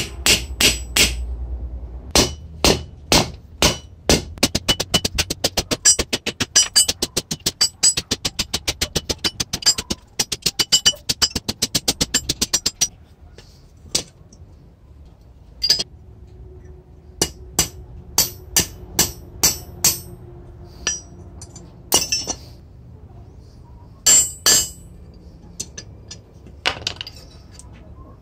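Hammer blows on a steel punch held against the rusty iron of an old herb-slicing knife, on a steel-rail anvil, each blow ringing metallically. About two blows a second at first, then a fast run of quicker blows, thinning out to scattered single strikes about halfway through.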